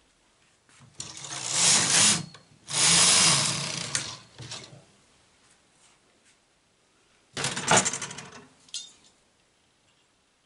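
Domestic knitting machine carriage pushed across the metal needle bed twice in quick succession, each pass a long mechanical rattle of the needles being driven through the carriage. A few seconds later comes a short clatter.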